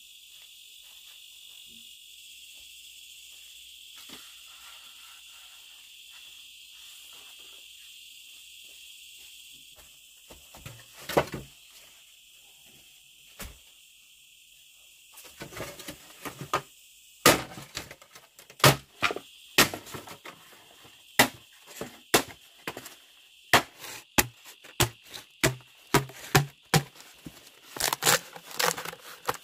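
Insects chirring steadily, then from about ten seconds in a run of sharp knocks that become regular, one or two a second, and louder than the insects.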